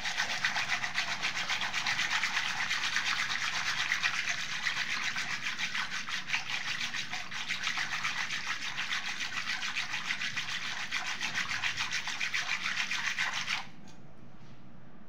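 Wire whisk twirled rapidly between the palms through cream and water, a fast rhythmic swishing and churning as the malai is churned to separate out the butter. It stops suddenly near the end.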